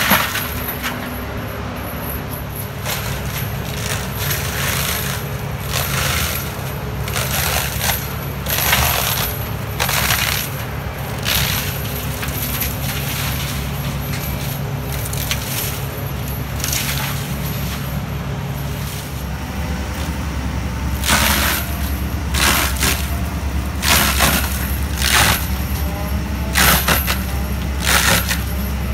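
Takeuchi TB2150 excavator's diesel engine running steadily under load while its FAE hydraulic mulcher head spins and shreds brush and small trees. Repeated sharp bursts of clattering come as wood and debris hit the rotor and housing, more often in the last third.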